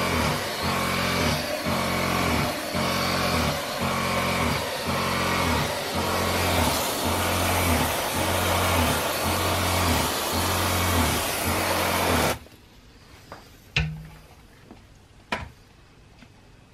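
Electric sprayer's water pump running with a steady hum that pulses just under twice a second, along with the hiss of mist spraying from the wand. It cuts off suddenly about three-quarters of the way through, leaving only a few faint knocks.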